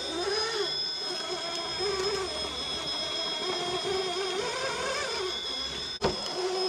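Brushless motor and gear drive of an Element GSpeed RC rock crawler whining as it climbs over rocks, the pitch rising and falling with the throttle. The sound drops out briefly near the end.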